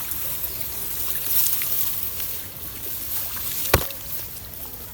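Water trickling and splashing, with one sharp knock about three and a half seconds in.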